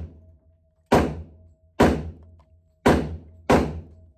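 Four pistol shots at an indoor shooting range, irregularly spaced, each loud crack followed by a short echo that dies away quickly.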